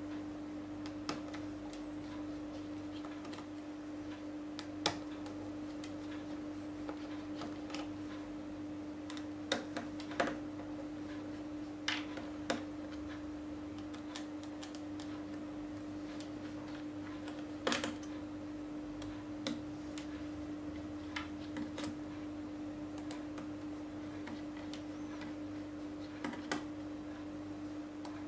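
Small irregular clicks and taps, about a dozen, as a precision screwdriver works the tiny screws inside an opened tablet and the screws are handled, over a steady low hum.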